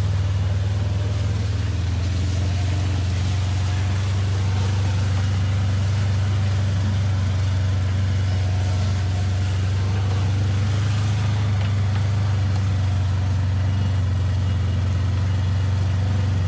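Side-by-side utility vehicle's engine running steadily with a constant low drone.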